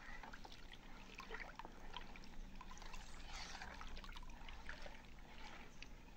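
Diluted dish-detergent solution swishing and lapping as it is stirred round a plastic basin with a red stirrer, with small irregular splashes and clicks.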